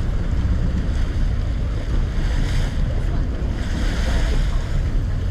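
Wind buffeting the microphone over the rush of water around a sport-fishing boat at sea, a steady low rumble with a hiss that swells a couple of times.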